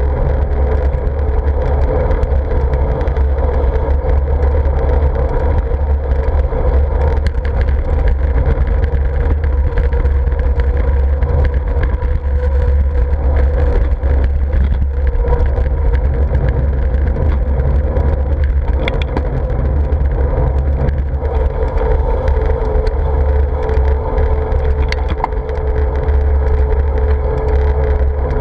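Steady wind rumble on a bike-mounted action camera's microphone while riding, mixed with road and traffic noise.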